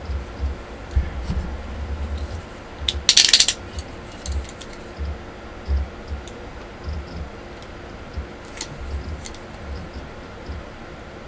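Boxed Nendoroid figure and its packaging being handled and opened: scattered knocks and low bumps, a short loud rasp about three seconds in, and a few light clicks.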